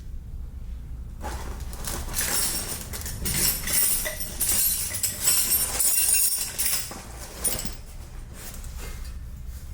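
Irregular metal clinking, clanking and scraping from about a second in until near the end, as a stubborn part is worked loose on a dirt bike. A low steady hum runs underneath.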